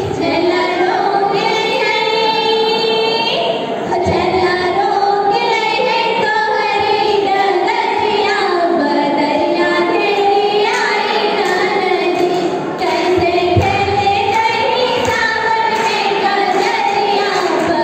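Young women singing a kajri, a Bhojpuri monsoon folk song, together into microphones: a high, wavering female melody with short pauses between lines.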